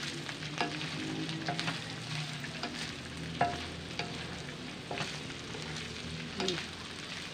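Strips of pork sizzling in hot oil in a steel wok while a wooden spatula stirs and scrapes them, with sharp pops and crackles of spitting fat, the loudest about three and a half seconds in. A low steady hum runs underneath.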